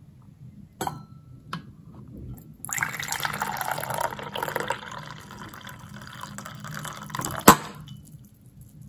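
Coffee poured from a carafe into a double-walled glass, the stream splashing into it for about five seconds. There are two light knocks before the pour and a sharp knock, the loudest sound, near its end.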